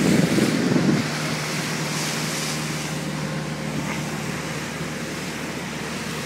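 Speedboat running at speed: a steady engine drone under rushing water and wind on the microphone, with a louder rumble in the first second.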